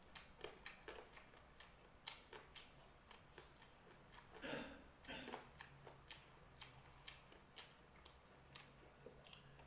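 Eating sounds of a person chewing rice and fried chicken: irregular soft clicks and mouth smacks, with two longer wet chews about four and a half and five seconds in.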